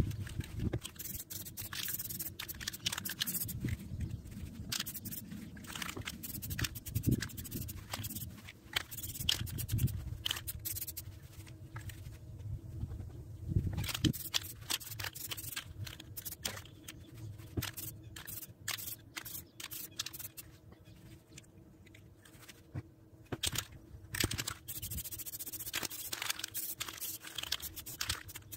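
Aerosol can of Rust-Oleum plastic spray paint hissing in short, repeated bursts as parts are coated black, over an uneven low rumble.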